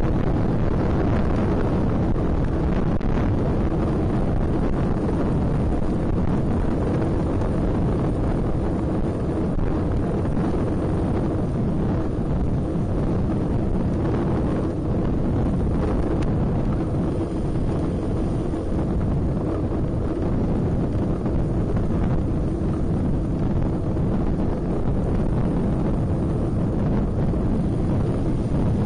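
Steady wind buffeting the microphone of a camera mounted on a moving road bike, a loud, even rumble that is heaviest in the low end.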